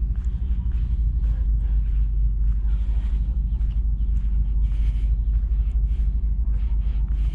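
Wind buffeting the microphone as a steady low rumble, with irregular short scuffing hisses over it, typical of walking outdoors.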